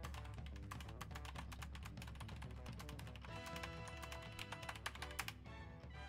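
Rapid typing on a computer keyboard, a dense run of key clicks, over background music, with a few harder key strikes near the end.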